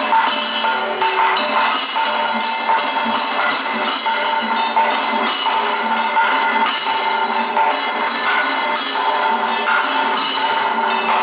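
Loud live Kathakali accompaniment music: metal percussion ringing continuously over rapid, unbroken strokes.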